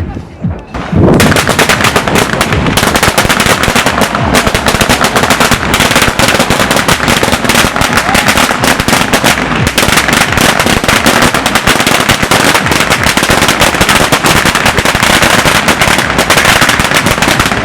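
A string of firecrackers going off in a dense, rapid rattle of sharp bangs. It starts about a second in and keeps up without a break.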